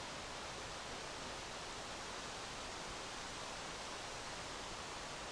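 Steady, faint, even hiss of outdoor background noise, with no distinct sounds in it.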